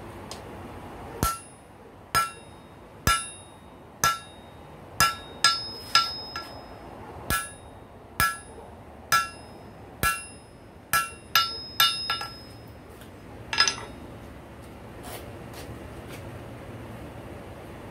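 Hand hammer striking a rail spike on a steel anvil: about sixteen ringing blows, roughly one a second with a few quicker doubles, stopping a little over two-thirds of the way through.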